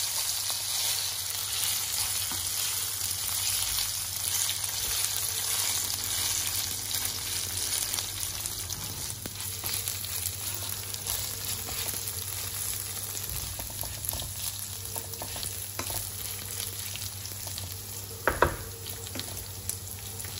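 Rice and toasted orzo sizzling in olive oil in a cast iron pot as they toast before the water goes in, stirred with a wooden spatula that scrapes and ticks against the pot. One sharper knock comes near the end.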